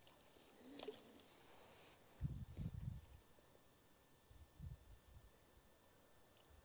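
Quiet outdoor ambience with faint, short, high bird chirps, and a few low rumbling thumps, the loudest about two seconds in and a weaker group near the five-second mark.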